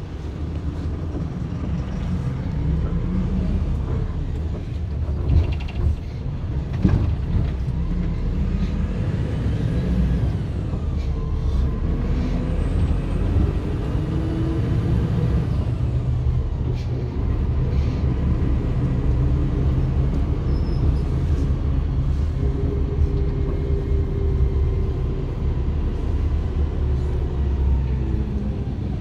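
Bus engine and road rumble heard from inside a moving city bus, the engine note rising and falling as it accelerates and slows. Two sharp knocks about five and seven seconds in.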